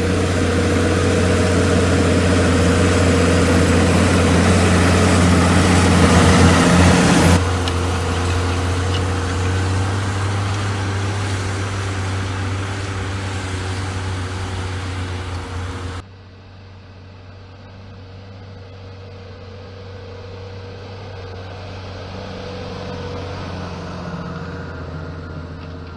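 New Holland T7.210 tractor's six-cylinder diesel engine running steadily while pulling a plough. The engine is loud at first, with abrupt drops in level about seven seconds in and again about sixteen seconds in, after which it sounds quieter and more distant.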